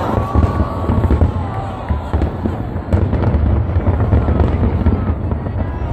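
Fireworks display going off: several sharp bangs and crackles over a steady low rumble.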